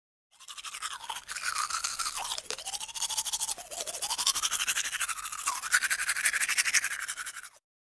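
A toothbrush scrubbing teeth with quick back-and-forth strokes, a steady bristly scratching.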